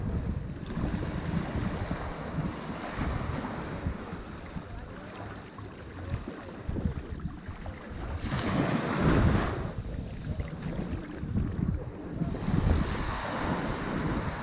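Ocean waves breaking and washing on a shore, with a louder wave crashing about eight seconds in and another swelling near the end. Wind buffets the microphone with a low rumble throughout.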